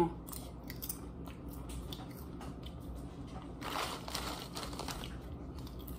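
Potato chips being chewed in small, scattered crunches, with a chip bag briefly rustling about four seconds in.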